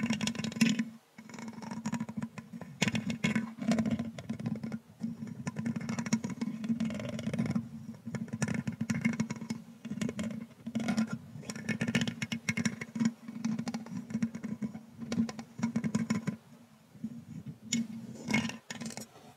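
Thin brush stroked and scratched across the metal mesh grille of a condenser microphone, heard very close-up as irregular brushing strokes that come quickly one after another.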